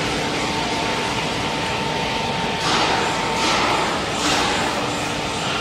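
PR GL-400 slab-edging line running: a steady machine hum from its saw motors and chain conveyor, with three short hissing surges in the second half.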